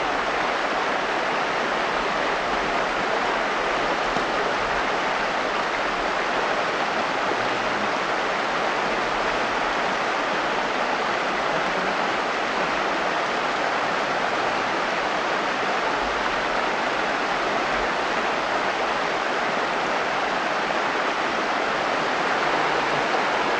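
Shallow mountain stream rushing over rocks in riffles: a steady, even rush of water.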